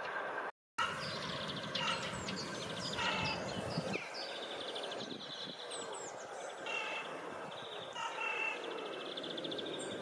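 Several small birds singing and calling: short chirps and fast trills come one after another, over a steady background rumble. The sound cuts out for an instant about half a second in.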